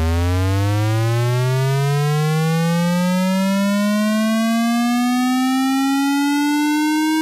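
Electronic tone with a buzzy, many-overtoned timbre, rising slowly and steadily in pitch from a low hum through about two octaves at an even loudness: a rising tone of the kind that signals something is about to go off.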